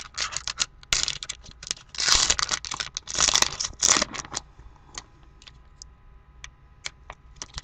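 A foil trading-card pack wrapper being torn open by hand, crinkling and tearing in several bursts over the first four seconds or so. A few light crinkles and clicks follow as the opened wrapper is handled.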